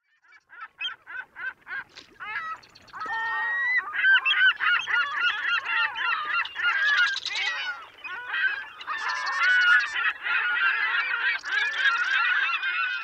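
A flock of birds calling. A few separate calls come about two a second at first, then from about three seconds in many calls overlap continuously.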